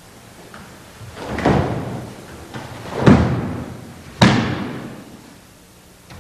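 Three heavy thuds about a second and a half apart, each dying away over about a second: a body slamming onto the ground in martial-arts break falls or throws.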